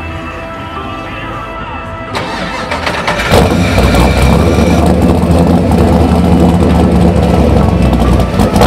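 A hot rod's engine cranks and catches about three seconds in. It then runs at a steady, loud idle with a deep rumble from its dual exhaust.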